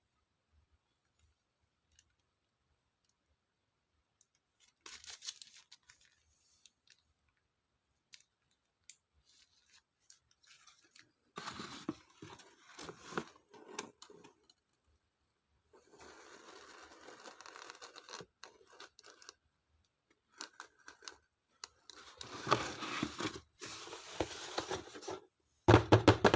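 Stationery packaging being unwrapped and torn: paper and plastic crinkling and tearing in several spells of a second or a few seconds each, and a louder knock near the end.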